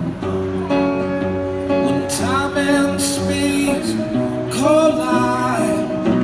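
A man singing his own song to a strummed guitar. The guitar chords run steadily, and his voice comes in twice with long wavering sung notes, about two seconds in and again near the five-second mark.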